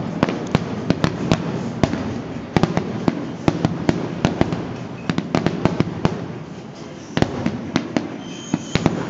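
Aerial fireworks bursting overhead: a rapid, irregular string of sharp bangs over a continuous rumble, thinning briefly about seven seconds in.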